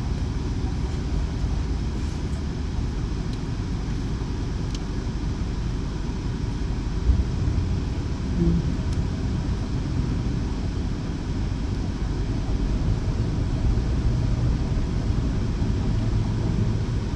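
Jeep Wrangler engine idling with a steady low rumble. It is running again after a blown fuse on the ASD relay circuit was replaced, the fault that had left it cranking without starting.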